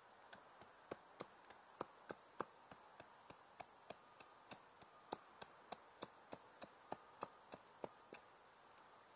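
Sharp wooden ticks from a stick being worked by hand, about three a second, stopping near the end.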